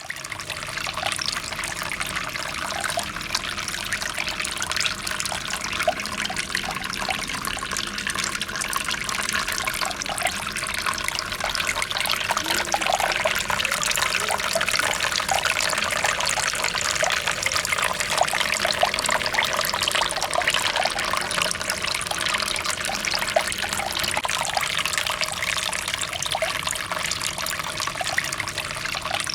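Water trickling and splashing steadily as it runs down a small homemade tabletop waterfall.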